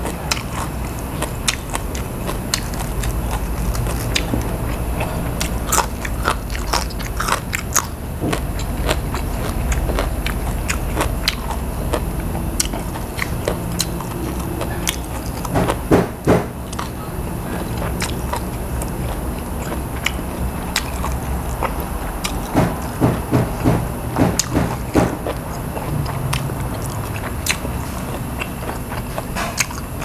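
Close-miked mouth sounds of a person eating grilled pork neck and raw vegetables: chewing, biting and wet lip-smacks. The smacks come in quick clusters about halfway through and again a little later, over a steady low hum.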